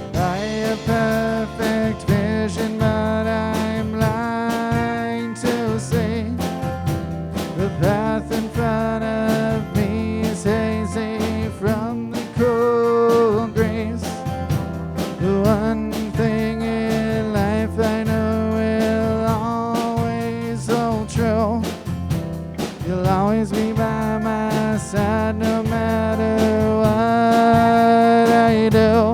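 A band playing an instrumental passage of a song without vocals, with a lead melody that bends in pitch over bass, chords and steady drums. It swells a little louder near the end.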